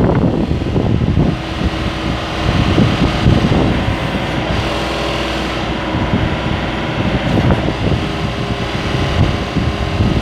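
Nissan S&B20 backhoe's engine running steadily.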